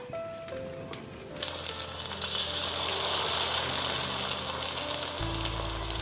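Food frying in hot oil: a dense crackling sizzle starts suddenly about a second and a half in and grows fuller a moment later, over background music.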